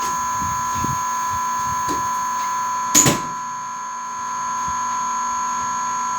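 Steady electronic tone sounding several pitches at once, like an alarm buzzer, with a single sharp hit about three seconds in.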